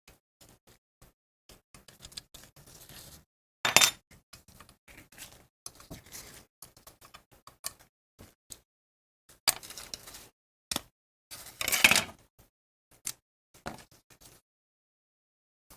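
Small metal parts and hand tools clicking, tapping and clinking on a work surface in irregular, scattered strokes. There are louder clatters about four seconds in, and again longer ones around ten and twelve seconds.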